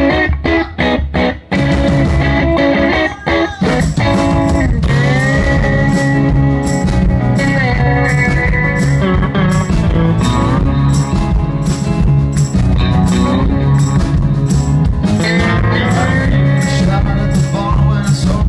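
Live rock band playing an instrumental passage: a lead guitar line with sliding, bending notes over bass and drums, after a few short stop-hits near the start.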